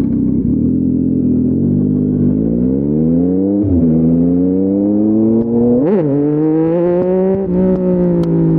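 Yamaha MT-09's 890 cc inline-three engine through an Akrapovic full-system exhaust, accelerating through the gears. The engine note rises, drops at a gear change about three and a half seconds in, rises again and drops at a second shift near six seconds, then holds with its pitch slowly easing.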